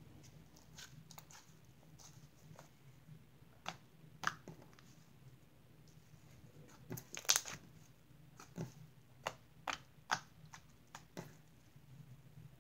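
Butter slime being stretched, dropped and pressed by hand on a tabletop, giving irregular sticky clicks and pops. The loudest burst of them comes about seven seconds in.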